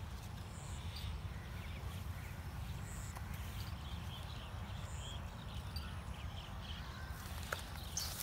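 Steady low wind rumble on the microphone, with faint, scattered chirps of small birds and a few sharp clicks near the end.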